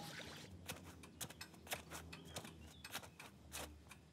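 Quiet, irregular clicks and taps of a spoon stirring in a saucepan, over a faint low hum.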